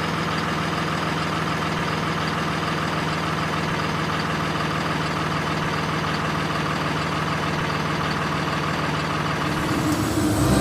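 Heavy vehicle engine idling steadily with an even, unchanging hum.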